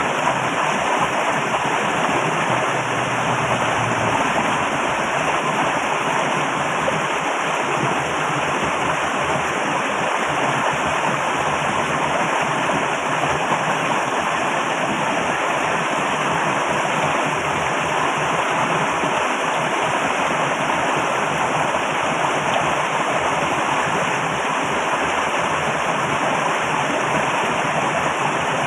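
Loud, steady rush of flowing water, with no breaks or separate events.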